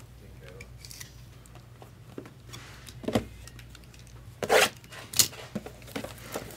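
Trading-card boxes and packs being handled, giving a few scattered rustles and taps. The loudest come about three seconds in and between four and a half and five seconds in.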